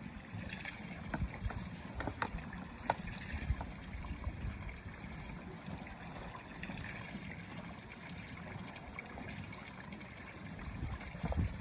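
Knocks and scrapes of a green plastic compost bin being rocked and tilted off its compost pile: a few sharp knocks in the first few seconds and a heavier thump near the end, over a steady low rumble of wind on the microphone.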